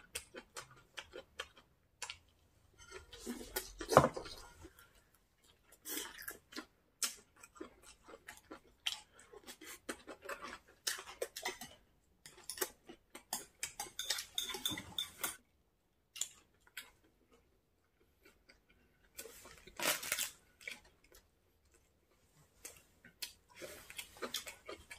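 Chopsticks and spoons clinking against dishes during a meal, irregular clicks with short pauses, along with chewing.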